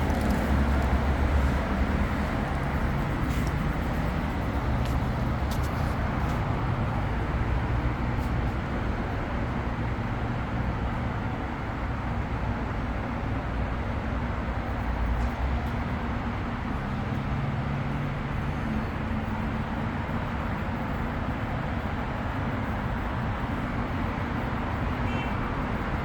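Automatic A/C refrigerant recovery and recharge machine running in recovery mode, drawing R134a out of the car's A/C system. It makes a steady mechanical hum, with low droning tones that shift in pitch now and then.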